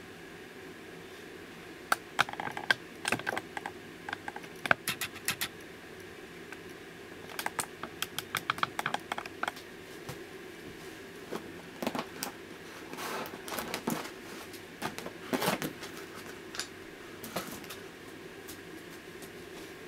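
Quick light clicks and taps of small hard plastic toy pieces being handled, in several bursts, over a steady low hum.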